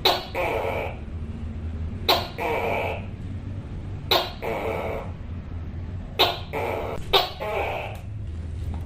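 Tokay gecko calling its two-part "to-kay" call five times: each call is a sharp, clipped first note followed by a longer, drawn-out second note. The calls come about every two seconds, with the last two closer together, over a steady low hum.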